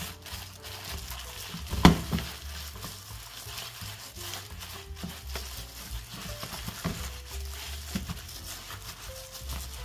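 Plastic-gloved hands squishing and rubbing chili paste into chives in a plastic tub: a wet, crackly squelching with small ticks, and one sharp knock about two seconds in. Soft background music underneath.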